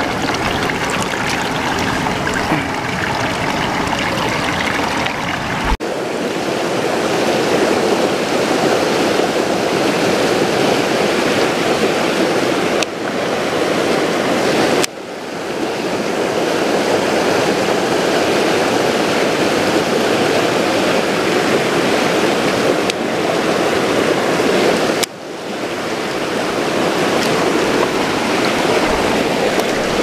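Mountain stream rushing over rocks and small cascades: a steady, loud rush of water, broken off and resumed abruptly three times.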